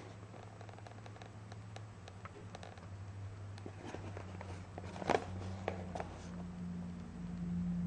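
Fingers handling and turning a small cardboard box: scattered light taps and rubs against the card, with a louder knock about five seconds in, over a steady low hum.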